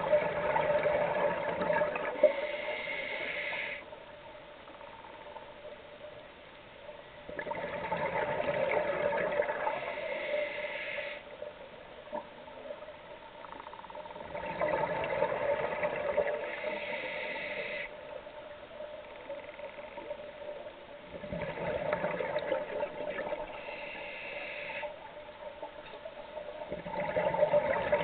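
A scuba diver breathing through a regulator: a loud gurgling rush of exhaled bubbles, then a shorter, higher hiss, repeating about every seven seconds, four times.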